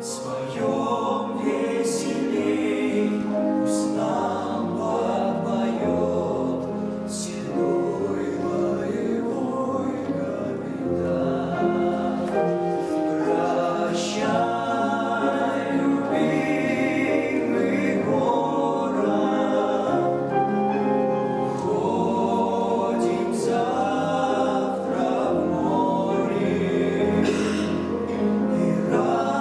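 A mixed group of voices singing a song in chorus, with piano accompaniment, at a steady, full level.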